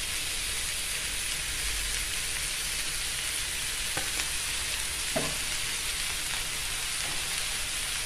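Vegetables and meatballs frying in an aluminium wok, sizzling with a steady hiss. A couple of faint ticks sound about four and five seconds in.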